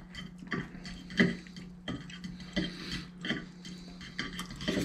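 Metal forks tapping and scraping on ceramic plates while noodles are twirled and eaten, with soft mouth sounds of chewing and slurping. The sounds come as small irregular clicks and knocks every half second or so.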